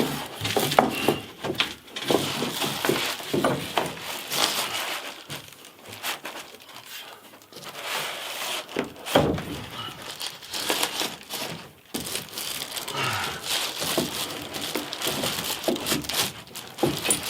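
Irregular knocks, scrapes and rustling as a freshly bent length of electrical conduit is handled and worked into place, with many short clicks and thuds.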